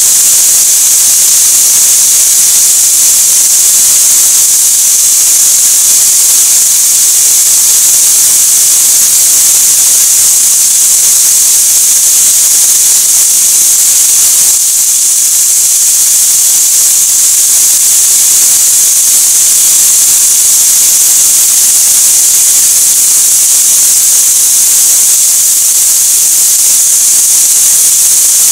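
Chicken pieces sizzling in a frying pan: a loud, steady hiss that dips slightly about halfway through.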